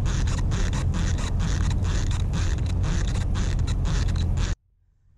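Baitcasting fishing reel squeaking and creaking over and over, about three times a second, as it is reeled in; it cuts off suddenly near the end. The owner thinks the horrible squeak comes from something in the reel, or dirt that got inside it.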